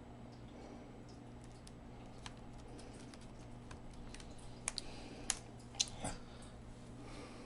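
Light handling and small sharp plastic clicks as a laptop battery's cable connector is worked into its socket on the motherboard, with a cluster of clicks a little over halfway through.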